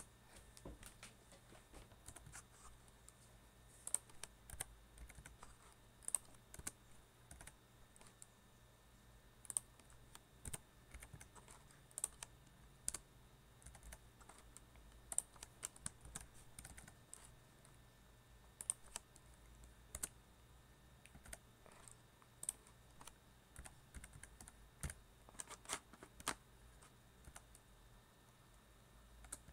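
Computer keyboard typing: faint, irregular runs of keystrokes with short pauses between them.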